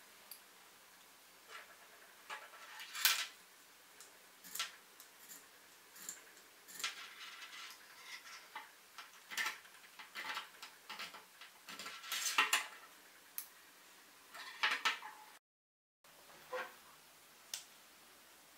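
Tungsten-alloy pocket sharpener worked in short strokes against the steel blade of a pair of bypass pruning shears: irregular metal scrapes and clicks, with a brief cut to silence about three quarters of the way through.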